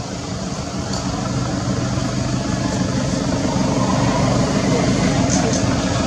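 A steady engine drone, growing slowly louder.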